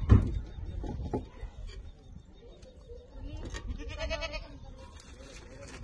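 A loud thump at the very start, then a short wavering animal call about four seconds in.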